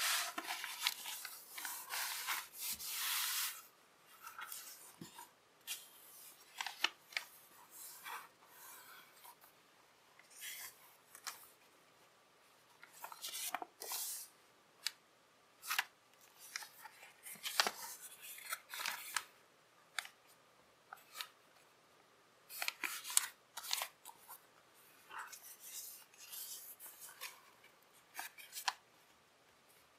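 A sheet of paper being folded and creased by hand: irregular rustling and crinkling, with short crisp snaps as folds are pressed flat. The longest, loudest rustling comes in the first few seconds.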